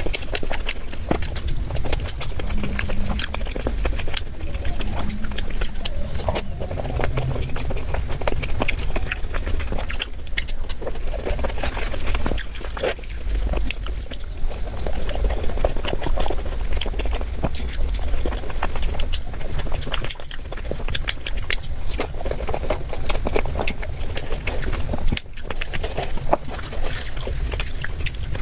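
Close-miked chewing and wet mouth sounds of a person eating, with many small irregular clicks and smacks over a steady low hum.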